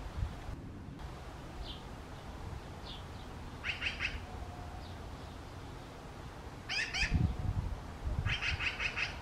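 Magpie chicks calling: harsh, rapidly pulsed calls in three bouts, about four, seven and eight-and-a-half seconds in, with a few faint short high notes between them. A low rumble runs under the second bout.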